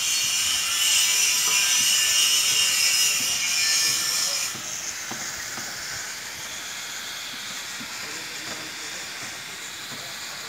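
A steady high-pitched hiss that drops off abruptly about four and a half seconds in, leaving a softer hiss.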